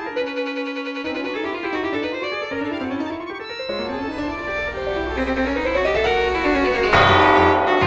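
Instrumental art-music score: quick rising and falling runs of short pitched notes, with a low sustained tone entering a little past halfway and heavier low notes near the end.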